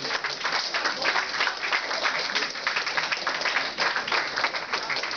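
A room full of people applauding: dense, steady clapping from many hands.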